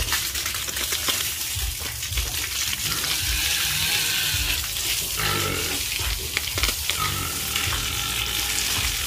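Water spraying from a hose and splashing on a concrete pen floor, a steady hiss. A few short piglet grunts come through in the second half.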